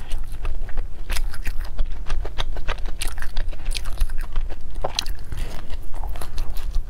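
Close-miked biting and chewing of a crisp fried pumpkin tart, with many short crunches as the crust breaks.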